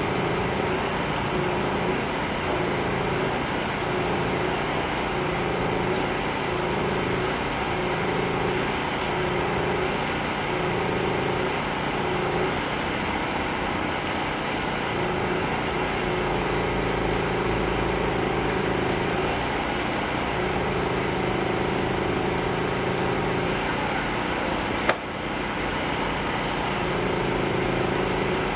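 Engine running steadily under a constant outdoor wash of noise, with a humming tone that swells and fades every second or so and then holds for longer stretches. One sharp click near the end.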